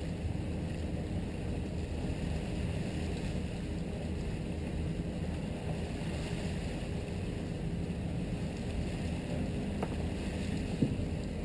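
1998 Sea Ray 330 Sundancer cruiser underway at slow speed: a steady low drone of the engines and the hull moving through the water. There is a single brief knock near the end.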